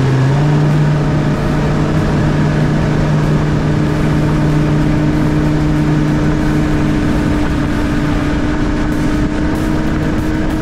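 Mercury Racing 300 outboard running at high speed on a tunnel-hull performance boat: a steady engine note over rushing wind and water, with a small rise in pitch right at the start.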